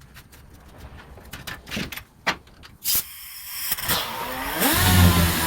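A few light clicks and knocks, then a hiss, then a motor starts up: its pitch rises and settles into a steady, loud hum with a whine over it.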